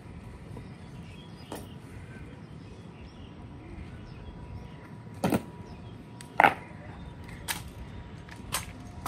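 Honor guard drill: sharp knocks and clicks of rifles and boots at irregular intervals, the loudest about six and a half seconds in, over steady background noise.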